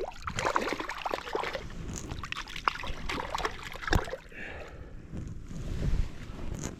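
Water splashing and sloshing with scattered clicks and knocks, one sharper knock about four seconds in.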